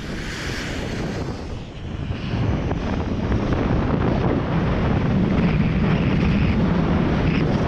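Wind rushing over the camera microphone on a fast descent down a sand dune, with a low rumble, growing louder about two seconds in as the speed climbs past 30 mph and then holding.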